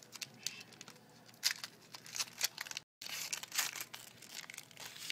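Shiny foil wrapper of an SP Authentic hockey card pack being torn open and crinkled by hand: a run of short, irregular crackling rips. The sound cuts out briefly about three seconds in.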